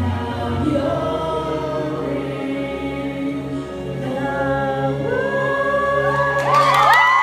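A man and a woman singing a love-song duet over backing music, swelling into long held notes that climb to a loud climax near the end.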